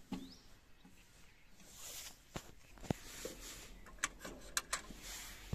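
Small sharp clicks and light handling noises of a hand working at a tractor's dashboard key switch and small rubber fittings, with no engine running; a quick cluster of clicks comes about four seconds in.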